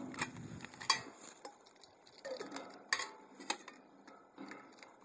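Nested Primus camping pots clinking together as they are unstacked and handled on a table: about four sharp metal clinks, the loudest about a second in.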